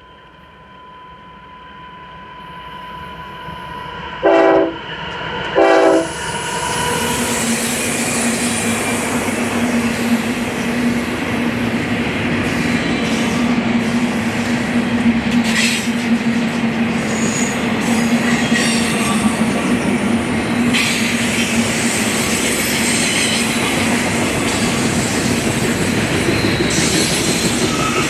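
A BNSF train approaching, sounding two short horn blasts about four and five and a half seconds in. It then passes close by with a steady, loud noise of locomotive and wheels on rail, over a low steady tone.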